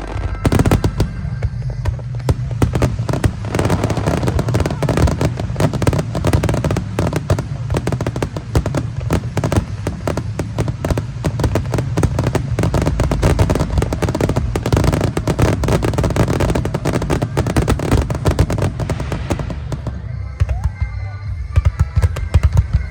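A dense barrage of aerial fireworks: many overlapping sharp reports and low booms from about half a second in, thinning out near the end, with music playing underneath.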